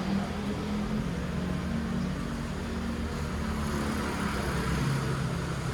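A steady low engine or motor hum with a noisy hiss over it.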